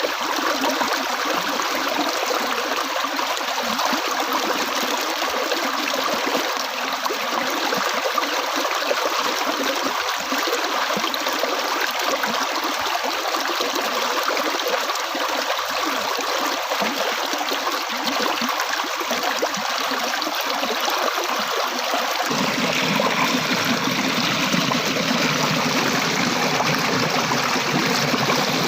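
Flowing water running steadily, an even rushing and splashing. About two-thirds of the way through it turns fuller, with a deeper rumble added underneath.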